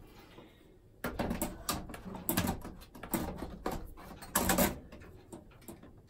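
Sheet-metal clunks, clicks and rattles of an HP ProLiant DL380 G7's empty PCIe riser cage being handled and seated in the server chassis. They start about a second in and are loudest a little past the middle.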